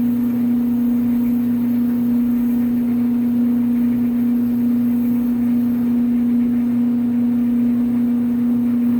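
Gas clothes dryer's motor running loud just after a cold start, a steady hum with one strong unwavering tone. It runs this loud only in winter when cold and goes much quieter once the motor warms up, a quirk the owner says has never hurt performance.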